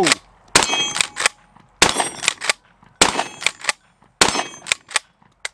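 Rock Island Armory All Generations 12-gauge pump shotgun fired four times in quick succession, about a second and a quarter apart, loaded with 2¾-inch shells. Each shot is followed by the clack of the pump action being racked as the spent hull ejects.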